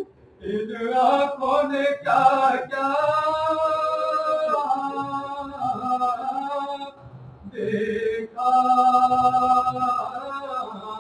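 A man's voice chanting an Urdu marsiya (Shia elegy) unaccompanied, in long held, gliding notes, with a short break about seven seconds in.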